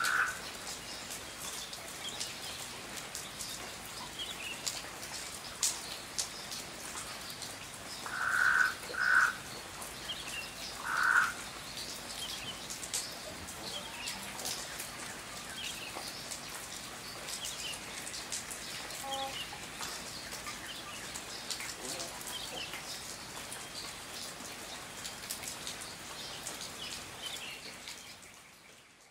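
Steady rain with drops pattering and dripping, under faint high bird chirps. Three short, loud animal calls stand out about eight to eleven seconds in, and the sound fades out near the end.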